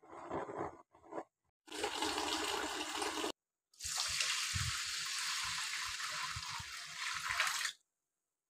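Water poured from a jug onto raw rice in a steel pot, a steady rushing pour of about four seconds in the second half. It is preceded by a shorter burst of rushing noise and a few brief handling noises.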